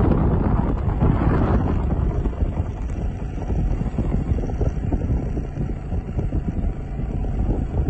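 Wind buffeting the microphone: a loud low rumble that swells and dips.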